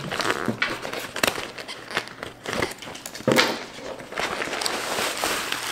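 Scissors cutting through a brown paper mailer bag, then the stiff paper crinkling and crackling as the bag is pulled open, with many small sharp clicks and rustles.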